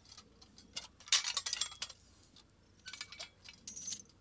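Steel chain links clinking and rattling against a Bullpull jack and a rebar ground rod as the rod is jacked out of the ground, in several short jingling bursts, the loudest about a second in.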